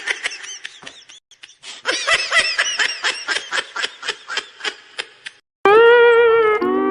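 High-pitched meme laugh sound effect: a quick run of giggling bursts that fades out over about five seconds. Near the end a loud held musical note comes in and drops to a lower held chord.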